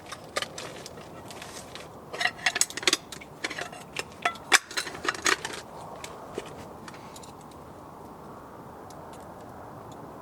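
Light metal clinks and rattles of a cooking pot and utensils being handled for a few seconds, then a steady low hiss.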